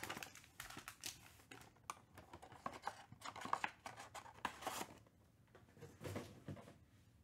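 Foil trading-card packs crinkling and rustling as they are handled and pulled from a cardboard hobby box, with small sharp clicks and taps. The handling dies down after about five seconds.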